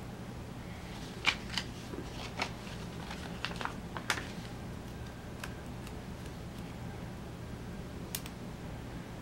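Hands peeling paper header stickers off a sticker sheet and pressing them onto planner pages: scattered light clicks and paper rustles, most of them between about one and four seconds in and one more near the end, over a faint steady low hum.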